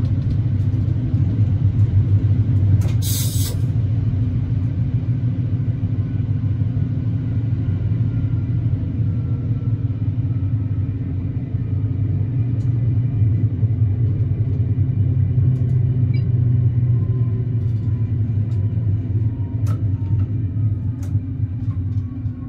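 AKN VTA diesel railcar running, heard from the cab: a steady low rumble of engine and track, with a brief hiss about three seconds in. In the second half a faint whine falls slowly in pitch as the train slows toward a station.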